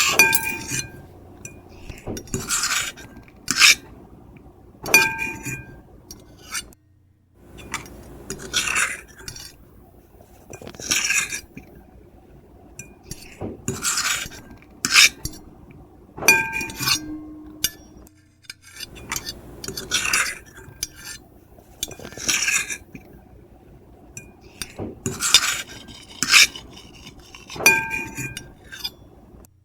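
Metal fork and knife scraping across a plate in repeated short strokes, one every second or two, several of them with a brief ringing squeal. There are two short pauses between strokes.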